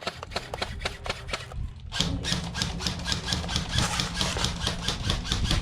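Airsoft rifle firing: a few scattered shots, then from about two seconds in a rapid, even string of shots fired on semi-auto by fast trigger pulls.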